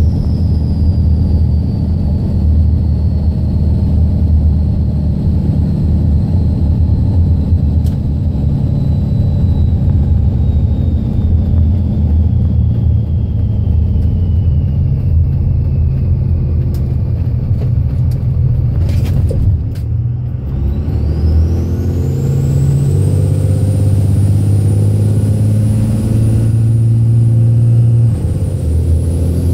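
Dodge Ram's 24-valve Cummins turbo-diesel running under way, heard inside the cab, with the 47RE automatic freshly rebuilt. A thin turbo whistle sinks slowly through the first half. After a brief lull about two-thirds through, the engine pulls again and the whistle rises steeply as it builds.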